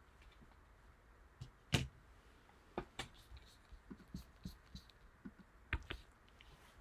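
Scattered quiet clicks and taps of trading cards being handled, the sharpest just under two seconds in.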